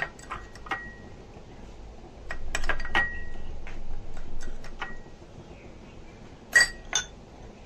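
Steel spoon clinking against glass bowls as milk powder is scooped and tipped into custard mixture: a scattering of light clinks, some with a brief ring, and two sharper ones near the end.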